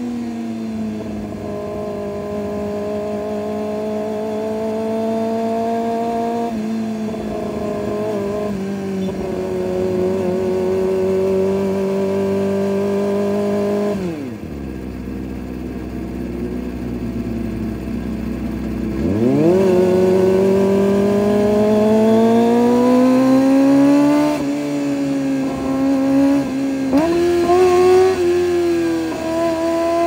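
Kawasaki ZX-25R's 250 cc inline-four through an Orion aftermarket exhaust, on the move, its note rising and falling through the revs. About halfway through it drops to idle for a few seconds, then climbs sharply as the bike pulls away, with quick pitch steps at the gear changes near the end.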